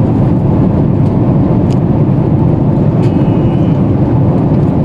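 Airliner cabin noise in flight: a steady, loud, low rushing of engines and airflow heard from inside the passenger cabin.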